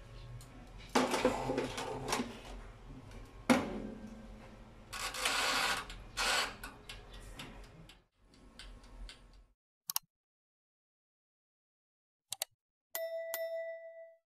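Metal clanks and knocks as a small electric toaster oven is loaded with a baking tray and its door shut, with a couple of sharp knocks. Near the end, clicks and a single bell ding from a like-and-subscribe sound effect.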